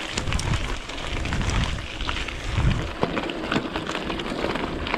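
Wind buffeting a GoPro action camera's microphone: low rumbling gusts with a crackling, rustling noise and scattered clicks.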